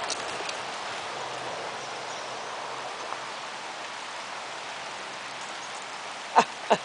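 Steady hiss of light rain falling on grass and leaves. Near the end, two short sharp sounds come close together.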